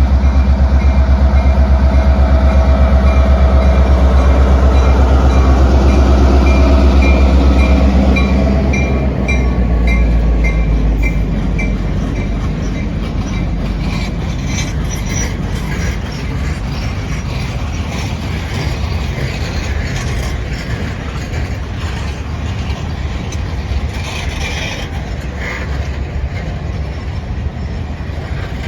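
A diesel freight train passing at a grade crossing: the locomotive's low engine rumble dominates for the first nine seconds or so and then drops away, while a crossing bell dings about twice a second. After that the freight cars roll by with irregular wheel clicks and knocks over the rail joints.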